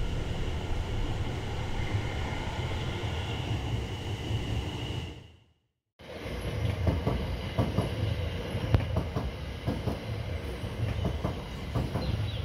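A train running on rails with a low rumble and a steady high whine, fading out about five seconds in. After a moment of silence a train comes in again with a rumble and irregular clacks and rattles from the wheels and cars.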